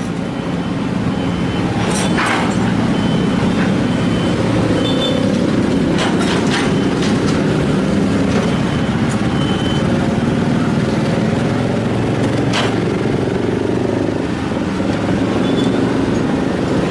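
Heavy diesel engine of a Sumitomo SH210 excavator running under load, swelling and easing as it works, with a few sharp knocks.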